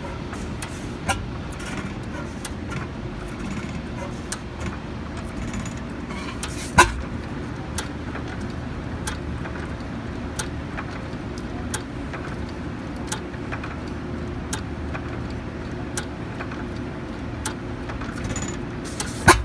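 Hit-and-miss stationary engine running, with a sharp pop about every second and a half over a steady low rumble. Two pops, about a third of the way in and right at the end, are louder bangs. This is the engine's normal hit-and-miss running, not backfiring: the governor holds the exhaust valve open so it coasts between firings.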